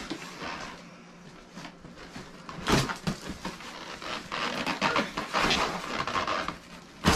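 Knocks, scraping and rustling of goods and packaging being handled during unpacking, with a sharp knock about three seconds in and another at the end.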